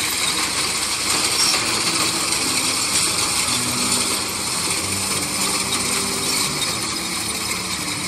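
Steady mechanical clatter from a tractor-mounted wheat reaper cutting standing wheat. Faint music with held notes runs underneath.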